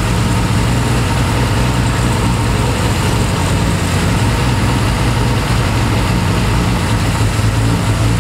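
Triumph TR6's straight-six engine idling steadily with its air cleaners off, while an airflow meter is held over the intakes to check the balance of its twin Zenith Stromberg carburettors.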